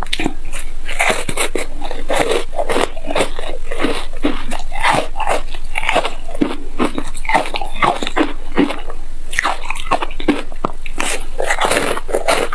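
Close-miked biting and chewing of a frozen, green-powder-coated ice block: a dense, unbroken run of crunches.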